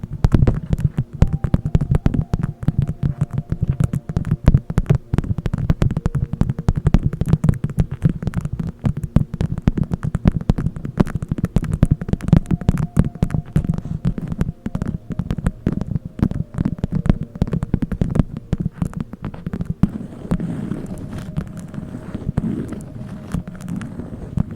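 A close-miked ASMR trigger: a dense, irregular run of rapid clicks over a low rumble, easing a little about twenty seconds in.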